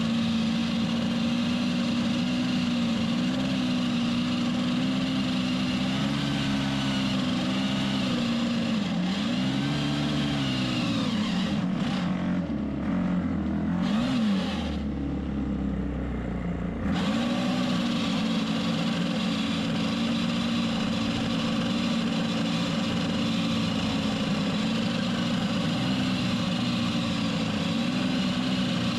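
Ryobi four-stroke gas pole saw running at high speed, its engine pitch dipping and recovering repeatedly as the chain cuts into dead branches. About halfway through the engine note drops away for a couple of seconds into a deeper rumble, then picks up again.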